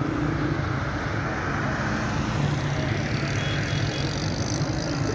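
Road traffic: a steady hum of motorcycle, auto-rickshaw and car engines on a busy road, swelling as vehicles pass about two seconds in.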